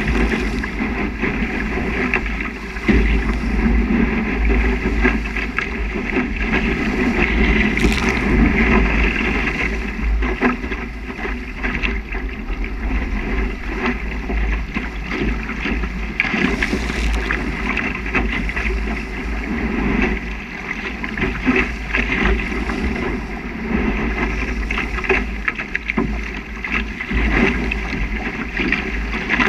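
Water rushing and splashing along the hull of a small Spiral sailing dinghy sailing fast through chop, with a steady wind rumble on the microphone and irregular slaps of spray.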